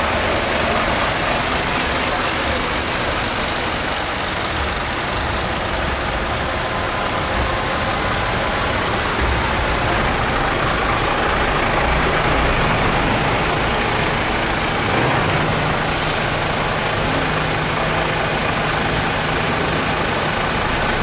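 A convoy of heavy trucks driving slowly past one after another, their diesel engines running steadily. A low engine drone comes in about halfway through as a Mercedes tractor unit draws close.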